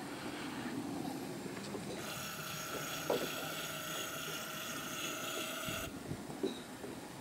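Outdoor background noise: a steady low rumble, with a thin high hum of several pitches that switches on about two seconds in and cuts off again near six seconds.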